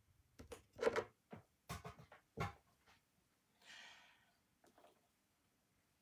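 Handling noises close to the microphone: a few soft knocks and clicks in the first two and a half seconds, then a short rustle about four seconds in, as of papers or a book being moved.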